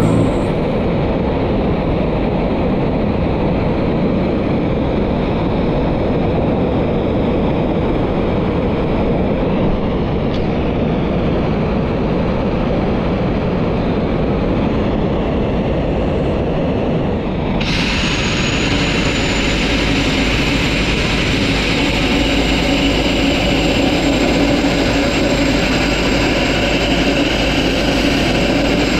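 Sandblasting rig running: a steady air-compressor drone, joined well past halfway by the sudden, harsh, continuous hiss of compressed air and grit blasting from the nozzle, with a thin high whistle riding on it.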